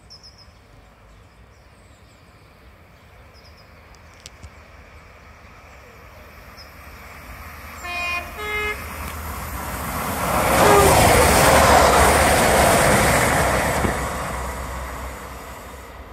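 A train sounds two short horn notes, the second lower than the first, about halfway through. It then passes, its rushing noise swelling to a peak and fading away.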